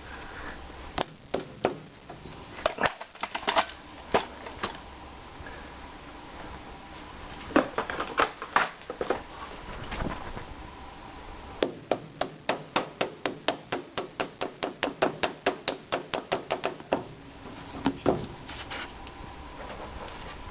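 Knocks and taps as rubber end caps are fitted over the front wheel hubs of a riding mower: scattered knocks at first, then a quick even run of about five taps a second for several seconds, then a few more knocks.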